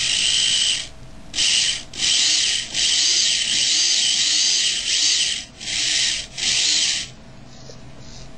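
Small electric iwaver motor and gear drive of a scratch-built 1/25 scale RC car whining in about six short throttle bursts, its pitch rising and falling with speed in the longest one. About seven seconds in it drops to a quieter hum.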